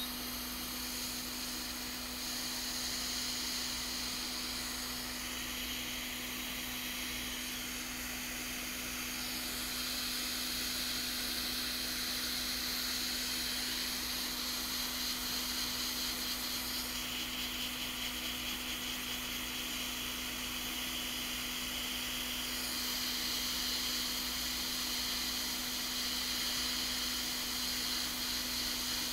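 Quick 861DW hot air rework station blowing onto the board, a steady airflow hiss over a constant low hum, reflowing the solder under a newly placed LP8550 backlight driver chip. The hiss changes tone a few times.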